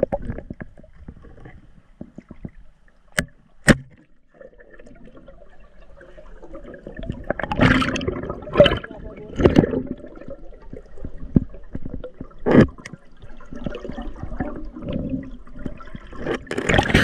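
Lake water splashing and gurgling around a swimming spearfisher, heaviest in the middle. Two sharp clicks come a little over three seconds in.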